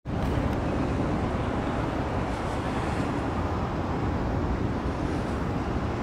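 Steady low roar of city road traffic, a continuous rumble with no distinct passing vehicles or other events.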